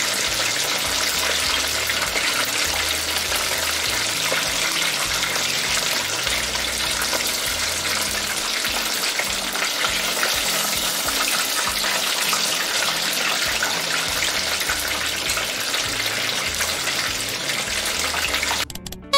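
Battered, floured chicken thigh pieces deep-frying in oil at about 180 °C, the hotter second fry: a steady, dense sizzle that cuts off suddenly near the end.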